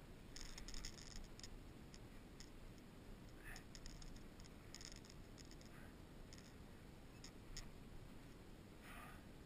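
Faint, irregular clicking and scratching over a low hiss, with two slightly longer scratchy sounds, one midway and one near the end.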